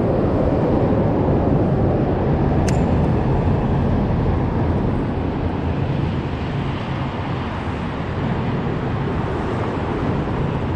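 Boat's outboard motor running steadily under way, with wind and water rush.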